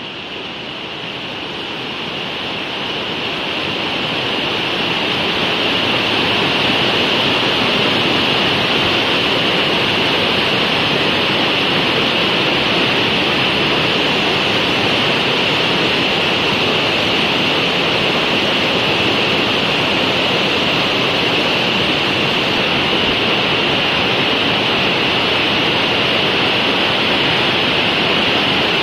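Shallow mountain river rushing over boulders and rocky rapids: a steady, loud rush of white water that grows louder over the first few seconds and then holds even.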